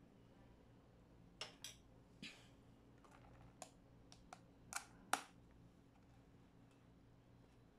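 Plastic lid being pressed onto a plastic cup: a string of short, sharp clicks and snaps over about four seconds, the last the loudest.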